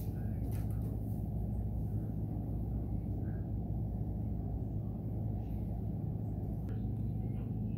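Steady low mechanical hum with an even pitched drone and no change in level.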